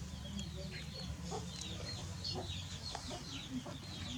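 Chicks peeping in quick, short, high falling notes, several a second, over a steady low hum.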